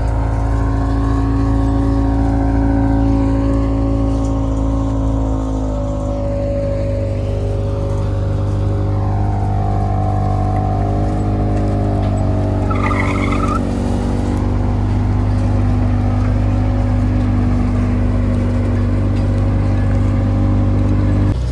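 Combine harvester engine running steadily under load, the machine's hum shifting slightly in pitch midway. A brief high warbling sound cuts through about thirteen seconds in.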